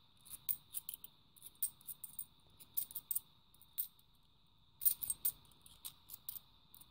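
Cupronickel 50p coins clinking and clicking against each other in the hand as a stack is thumbed through one coin at a time: short light metal clicks, several a second in irregular clusters, over a faint steady high whine.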